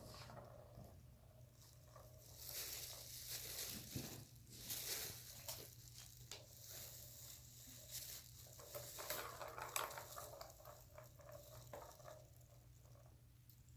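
Faint rustling and soft pattering, with scattered small taps and clicks.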